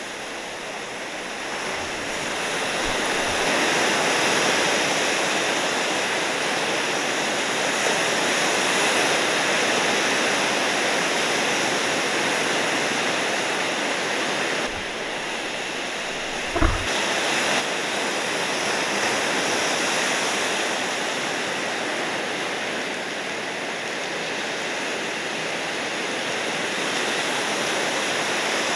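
Steady rushing of ocean surf and moving water, swelling and easing slowly, with one brief low thump a little past halfway.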